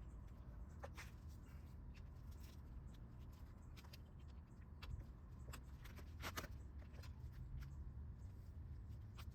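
Faint scattered clicks and taps of hands handling ignition parts, plug wires and a distributor cap, the loudest about six seconds in, over a low steady rumble.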